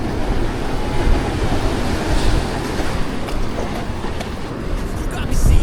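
Strong wind buffeting the microphone in a steady deep rumble over the hiss of surf on the beach.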